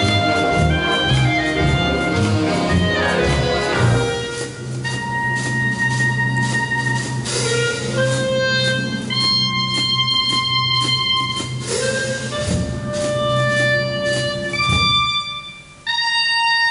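Concert wind band playing a jazzy foxtrot with a solo clarinet. The full band plays busily at first, then long held notes sound over a sustained low note for several seconds before the band comes back in. The music dips briefly near the end before a new held note.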